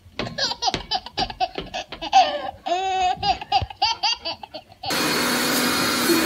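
Baby laughing in quick repeated bursts, with a longer wavering squeal of laughter about midway. About five seconds in it cuts to the steady whir of a running robot vacuum.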